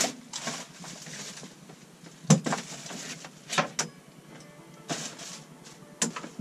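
Knocks and clatter of crutches and feet on a boat's wooden cabin floor as someone with a sprained ankle moves about on crutches: a handful of separate knocks, the loudest about two seconds in. Quiet music plays underneath.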